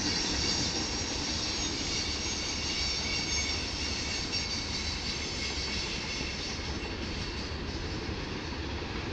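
A long train passing close by, its many cars rolling past in a steady, unbroken rumble, with a faint high squeal from the wheels.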